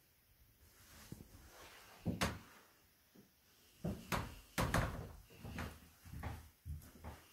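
Scattered knocks and thumps from an interior door being opened and pushed, the loudest about two seconds in and a cluster between four and five seconds.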